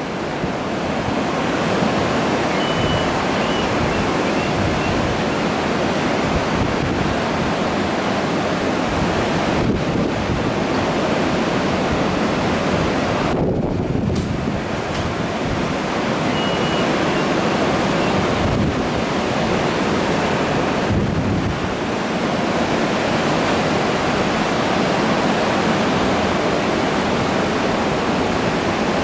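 Ocean surf breaking on the beach, a steady rush of waves swelling and easing, with wind rumbling on the microphone.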